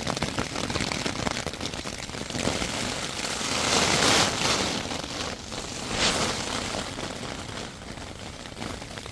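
Storm wind buffeting the microphone, swelling in gusts about four and six seconds in, over a constant crackling patter of hail and sleet.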